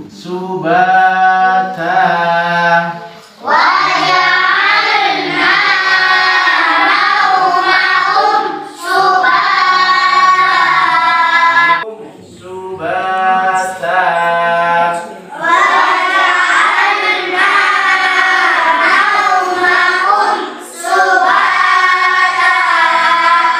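Group of children chanting Quranic verses in unison, in long phrases with short breaks between them.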